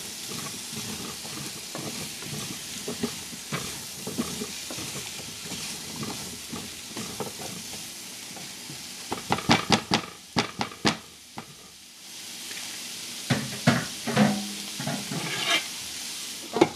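Cubed butternut squash sizzling steadily in a nonstick frying pan while a silicone spatula stirs it. The spatula clacks against the pan in quick runs about nine seconds in and again about thirteen seconds in. Right at the end there is one sharp clink as the glass lid goes on.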